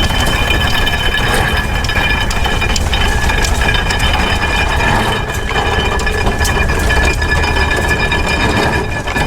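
Steam-powered farm machinery running: a steady mechanical clatter of small knocks and clinks over a low rumble, with several steady high-pitched whining tones.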